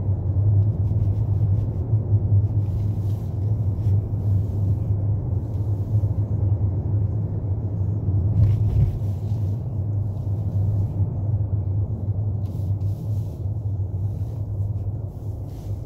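Car driving on city streets, heard from inside the cabin: a steady low rumble of engine and road noise, with faint brief hisses now and then.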